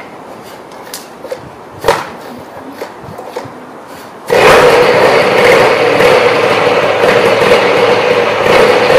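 Polini 80cc two-stroke paramotor engine, fitted with a freshly rebuilt Walbro WG8 carburettor, starting suddenly about four seconds in and running steadily. A few light knocks of handling come before it starts.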